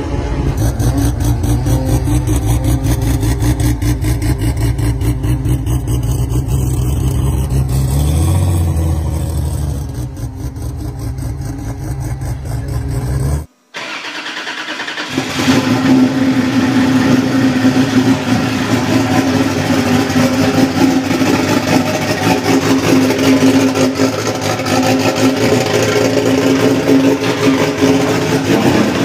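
Turbocharged Toyota 2JZ straight-six in a drag car, idling, with a change in pitch about eight seconds in. About thirteen seconds in, the sound cuts out for a moment, then the engine is heard running steadily again.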